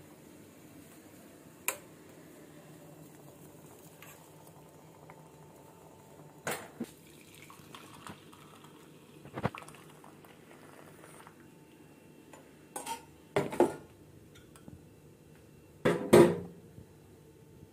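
Steel pan, tea strainer and glass clinking and knocking as hot kadha is strained from the pan into a glass: a handful of sharp knocks spread out, the loudest a ringing clatter near the end, over a faint steady hum.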